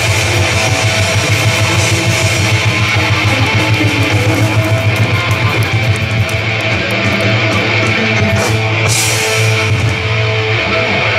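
Live rock band playing loudly: electric guitars over a drum kit, with a cymbal crash about eight and a half seconds in.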